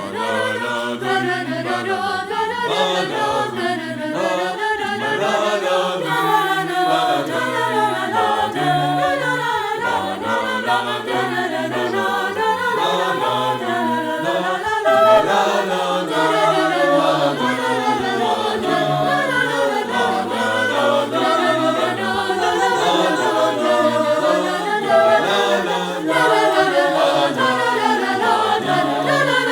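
Choir singing in several parts, voices without instruments, carrying on without a break.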